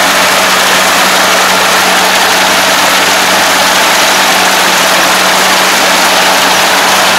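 Rice combine harvester running at a steady pitch as it cuts a standing rice crop: the engine and the cutting and threshing machinery make one loud, even noise with a steady low hum under it.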